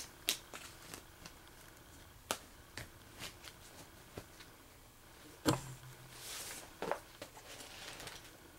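Tarot cards being handled and laid down on a cloth-covered table: scattered soft taps and clicks, the loudest about five and a half seconds in, followed by a short papery slide.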